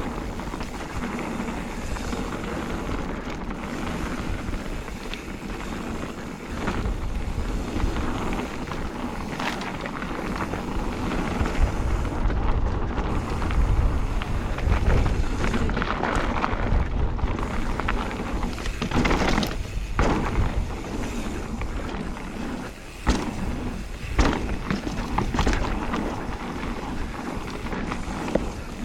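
Mountain bike rolling over a dirt woodland trail: knobbly tubeless tyres (Magic Mary front, Hans Dampf rear) crunching and rumbling on the ground, with wind on the microphone and the rattle of the bike. A few sharper knocks from bumps in the second half.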